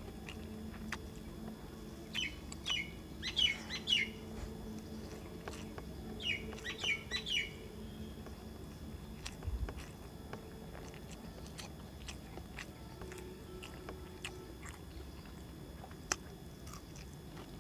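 Bird calls: two bursts of quick, falling, high chirps, about two seconds in and again about six seconds in. Faint clicks and soft chewing from eating by hand off a steel plate lie underneath.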